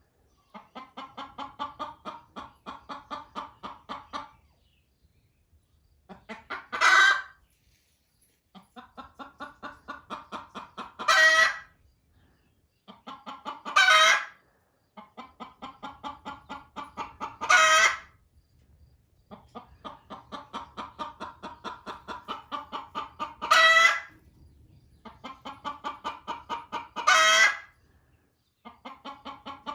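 Hen cackling loudly: runs of rapid clucks, about four a second, each ending in a loud drawn-out squawk, six times over. It is the hen's egg-laying cackle, which the owner takes for a hen impatient to get onto a nest another hen is using.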